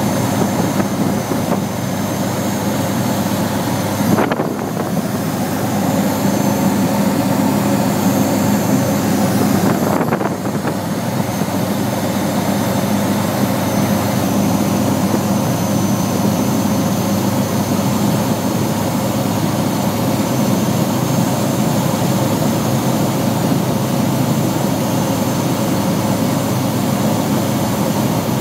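Evektor SportStar light aircraft's piston engine and propeller droning steadily, heard from inside the cockpit, with a steady low hum under the rush of noise. The sound briefly dips about four seconds and again about ten seconds in.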